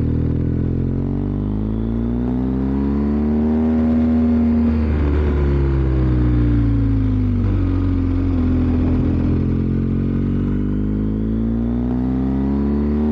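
BMW R1250GS Adventure's boxer-twin engine under way: its note climbs as the bike accelerates, eases off and falls about five seconds in, then climbs again as it pulls away once more.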